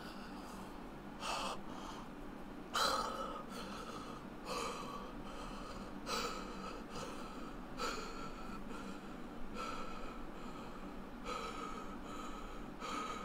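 A man's heavy, gasping breaths through an open mouth, about one every one and a half seconds, the loudest about three seconds in: breathing in distress after swallowing a scorpion.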